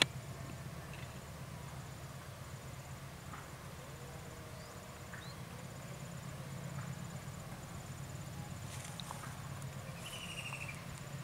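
Rural ambience: an insect's high, steady pulsing call, a few short bird chirps and a quick bird trill near the end, over a low steady rumble.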